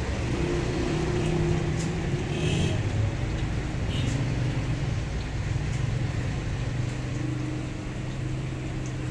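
Steady low mechanical hum, like an engine or motor running, with a few faint clicks about two and four seconds in.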